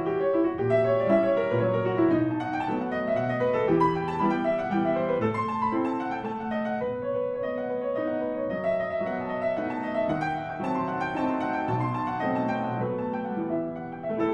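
Background music: solo piano playing a classical piece.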